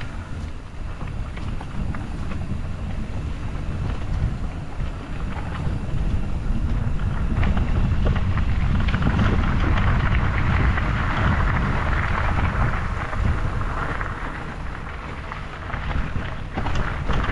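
Wind buffeting the microphone while a loaded bikepacking bike rides along a trail, with the tyres rolling and scattered clicks and rattles from bumps. The rushing noise swells louder for several seconds in the middle, then eases.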